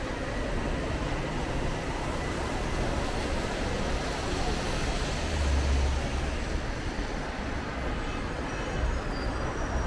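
Street traffic noise: a steady wash of passing vehicles, with a low rumble swelling for about a second around five seconds in.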